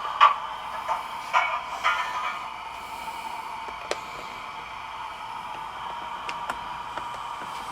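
Motor drive of a gauge 1 model railway turntable running with a steady whir. Louder uneven surges and clicks come in the first couple of seconds, then a few single clicks.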